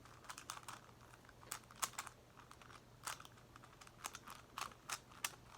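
Plastic Megaminx puzzle being twisted by hand: irregular, light clicks and clacks as its faces turn and pieces snap into place.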